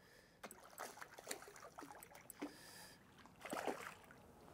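Faint small splashes of a hooked bream thrashing at the surface in shallow water as it is drawn to the bank, with a slightly louder splash about three and a half seconds in.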